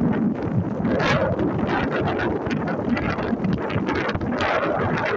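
Strong stormy wind buffeting the phone's microphone in irregular, rumbling gusts.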